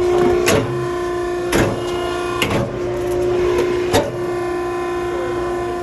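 Steady hum of a cardboard baler's hydraulic power unit, broken by four short clattering knocks.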